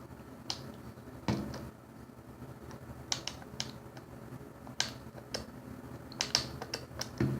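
Irregular sharp clicks and taps of plastic being handled, from adding soap to a container and mixing the slime ingredients, about a dozen over the span and bunched together near the end.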